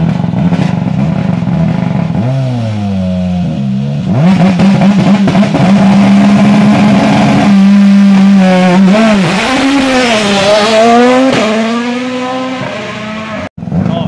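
Ford Puma Rally1 car's turbocharged 1.6-litre four-cylinder engine running with anti-lag on while stationary: steady at first, then revved up and down repeatedly from about two seconds in.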